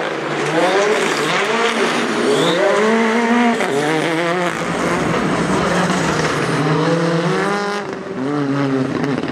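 Rally cars' engines revving hard as they pass, the pitch repeatedly climbing and then dropping with each gear change, one car following another.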